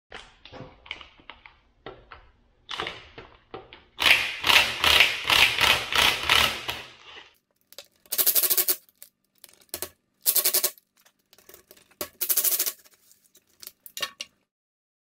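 Cordless impact wrench hammering bolts loose on a differential housing: one long burst of about three seconds, then three shorter bursts about two seconds apart. Light clicks and knocks of tools being handled come between them.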